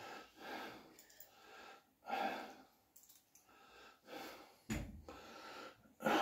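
A man breathing heavily close to the microphone while moving about, in a short series of breaths, with a dull bump about three quarters of the way through.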